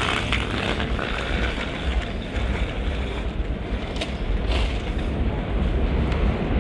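Elevated 7-line subway train rumbling and clattering on the steel viaduct overhead, growing louder toward the end, with a few sharp metallic clicks a little past the middle.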